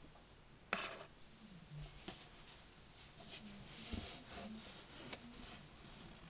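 Faint rustling and rubbing of polyester pillow stuffing as hands squeeze it into a ball, with a soft knock about a second in. A faint background TV is audible under it.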